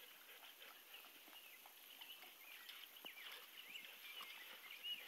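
Near silence: faint outdoor ambience, with a few short, faint high chirps in the second half.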